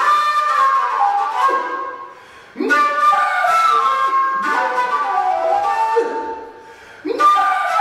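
Background music led by a flute, playing melodic phrases that each fade away before the next one starts.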